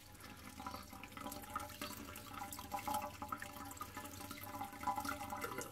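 Nutrient solution trickling and dripping inside a PVC NFT hydroponics channel: a steady trickle with many small drips, heard through the open hole as a net cup is lifted out.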